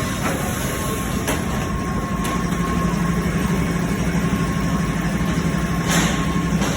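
CNC plasma cutting machine running: a steady noisy hiss with a low hum and a thin high whine, and a few brief clicks.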